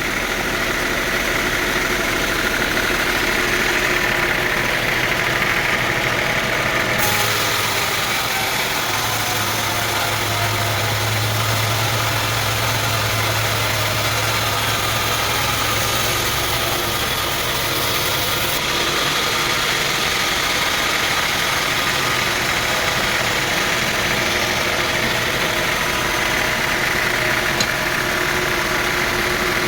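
Sawmill machinery running: a steady engine drone with constant mechanical noise, with a deeper hum for several seconds in the middle.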